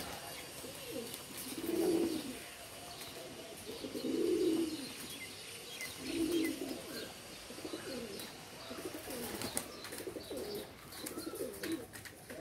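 Domestic pigeons cooing, with three louder low coos about two, four and six seconds in and softer cooing throughout. Faint high chirps of small birds sound above them.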